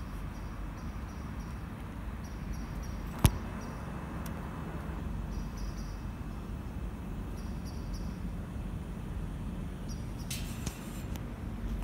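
Low steady rumble of a Network Rail maintenance train approaching from a distance, with faint high chirping over it. A single sharp click about three seconds in is the loudest sound, and a short hiss follows near the end.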